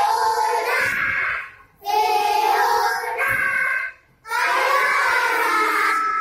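A class of young children singing together a children's action song about the thumb in Arabic, in sung phrases broken by two short pauses.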